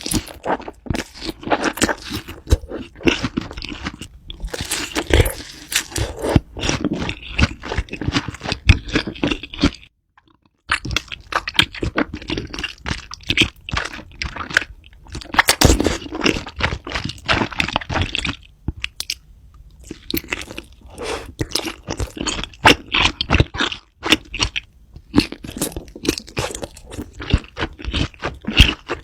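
Close-miked crunchy food being bitten and chewed, a dense run of irregular crackling crunches, broken by a brief silent gap about a third of the way through.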